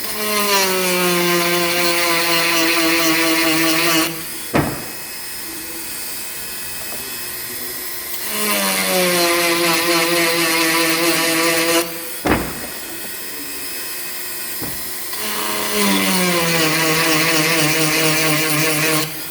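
Dremel rotary tool with a cone grinding stone filing chainsaw chain cutters in three passes of about four seconds each. At the start of each pass the motor's whine drops in pitch as the stone bites, under a gritty grinding hiss, with quieter gaps between the passes.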